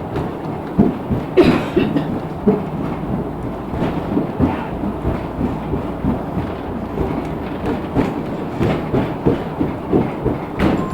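Cabin noise of a LiAZ 6213.65 articulated bus under way: a steady low rumble of engine and tyres with frequent knocks and rattles from the body, one sharp bang about a second and a half in and another near the end.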